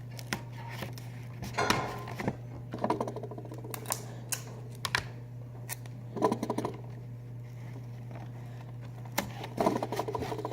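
Clear tape and a plastic sheet being handled and pressed onto a cardboard box: scattered sharp clicks and crackles, with a few short rasps, over a steady low hum.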